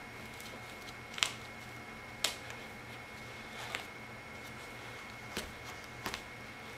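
Carpet knee kicker being bumped with the knee to stretch carpet onto the tack strip's nails: about five short, sharp knocks at uneven intervals.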